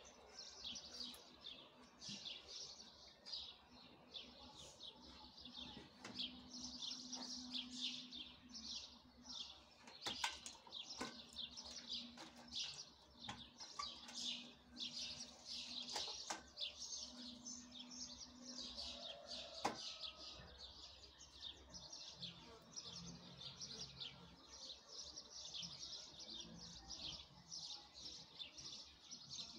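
Small birds chirping continually in quick, overlapping high chirps. A few sharp clicks and a faint low hum sound in the background.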